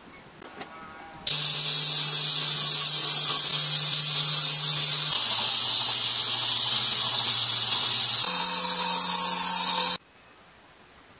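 Belt grinder grinding a steel sword blade: a loud, steady hiss of the abrasive belt on the steel over the motor's hum. It starts suddenly about a second in and cuts off near the end, and the hum changes pitch twice along the way.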